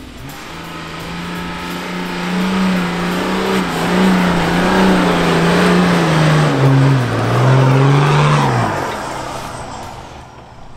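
Four-wheel-drive ute engine revving hard at full throttle in third gear up a steep sand dune, with tyres churning sand. The revs hold high, sag about seven seconds in, pick up again, then drop away as it tops out.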